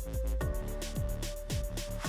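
Background electronic music with a steady beat: fast hi-hat ticks over a held synth note and repeated falling bass notes.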